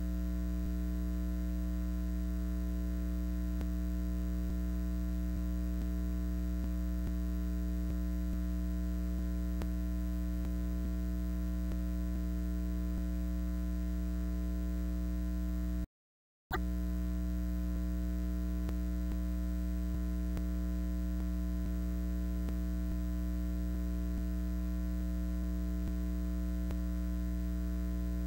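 Steady electrical mains hum with its overtones, and no crowd or game sound. The audio drops out to silence for about half a second midway, then the hum resumes unchanged.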